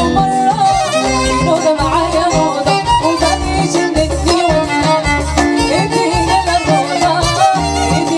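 Live Moroccan chaabi band playing an instrumental passage: a violin carries a wavering, ornamented melody over electric guitar and a steady pulsing bass beat.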